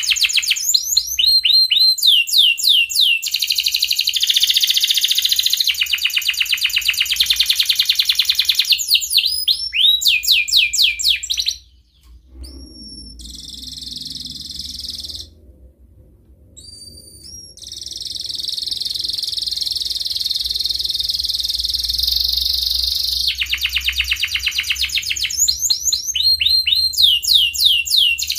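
Domestic canary in breeding condition singing a long song of fast trills and repeated falling notes. About halfway it breaks off for several seconds, giving only a couple of short rising whistles, then starts singing again.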